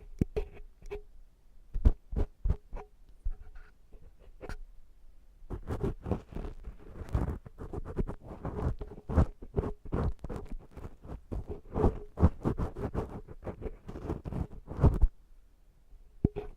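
Ear-cleaning tool scraping inside a silicone ear model. A few scattered scrapes and clicks come first, then about ten seconds of dense scratching that stops abruptly near the end.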